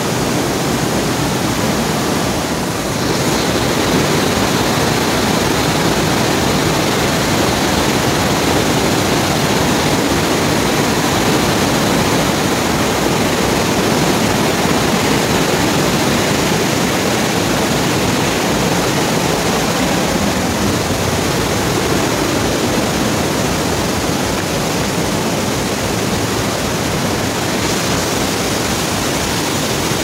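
Loud, steady rush of a swollen, muddy stream tumbling over rocks and small cascades.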